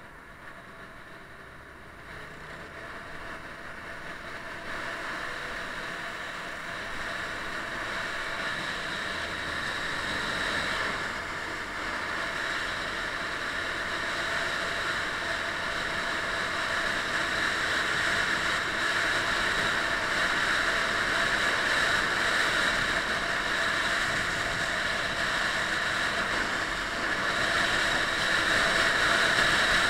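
Motorcycle ride heard from the rider's camera: a steady rush of wind over the microphone with the bike's engine and tyre noise beneath it, growing gradually louder as the ride goes on.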